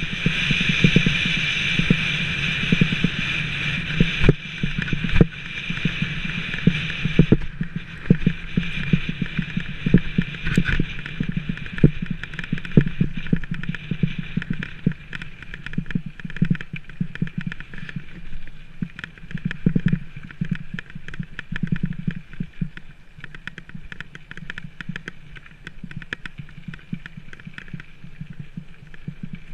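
Rockrider 520S mountain bike rolling downhill over a loose gravel track: steady tyre noise with the bike rattling over bumps in many small knocks. A higher hiss drops away about seven seconds in.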